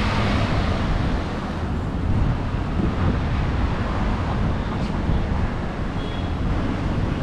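Steady, fairly loud low rumbling noise, with wind buffeting the microphone.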